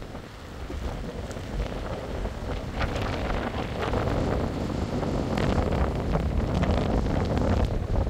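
Wind buffeting the microphone over storm surf breaking on the shore, growing steadily louder.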